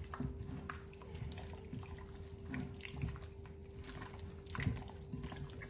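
Hands squishing and kneading raw chicken pieces in a wet yogurt-and-oil marinade in a glass bowl, giving irregular wet squelches and smacks. A faint steady hum runs underneath.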